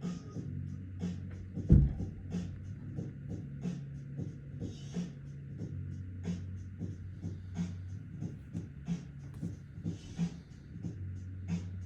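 Lo-fi hip-hop background music with a steady, unhurried beat and held bass notes. A single loud thump comes near two seconds in.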